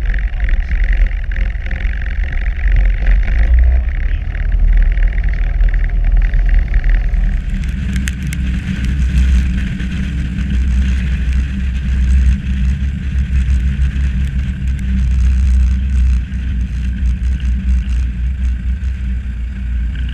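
Piper Warrior's four-cylinder piston engine running steadily at low taxi power. It is heard first inside the cabin, then from outside the aircraft from about seven seconds in, where it sounds brighter and hissier.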